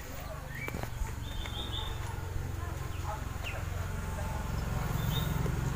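A small engine idling with a steady low pulsing rumble that grows gradually louder, with a few short bird chirps over it.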